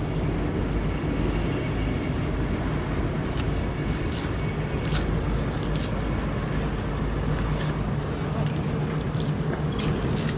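Night ambience: insects trilling steadily at a high pitch over a low, steady hum, with a few faint clicks.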